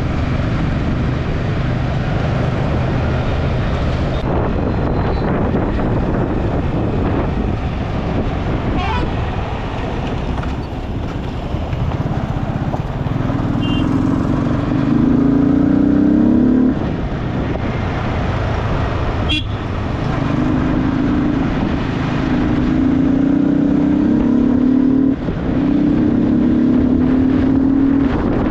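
Yamaha R15 motorcycle's single-cylinder four-stroke engine running under the rider, with wind and road noise over the rough, gravelly surface. Twice the engine note climbs for a few seconds as it accelerates and then drops away suddenly.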